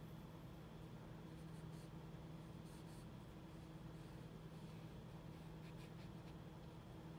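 Faint, soft scratching of a small flat paintbrush dabbing short horizontal strokes of paint, in a few brief bursts, over a steady low hum.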